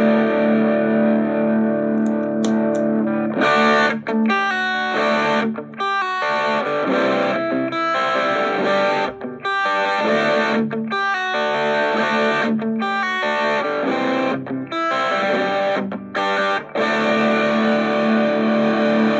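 Electric guitar played through an Orange Micro Terror hybrid amp with a Golden Horse overdrive pedal switched on, the drive at about a quarter: crunchy distorted chords held and let ring, with brief stops between phrases.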